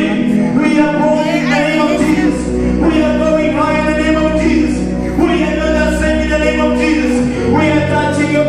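Gospel worship music: singing in long held notes over steady instrumental backing, the bass shifting about two seconds in and again near the end.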